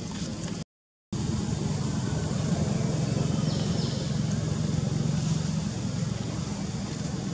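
A vehicle engine running with a steady low hum, broken by a short cut to silence just before a second in.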